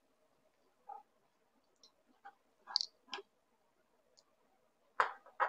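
Light clicks and taps of small glass salt and pepper shakers with steel caps being opened and handled, with two louder knocks close together near the end.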